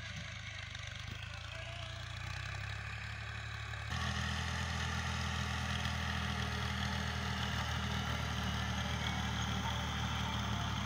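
Fiat 480 tractor's three-cylinder diesel engine running steadily while pulling a field implement; it gets louder about four seconds in.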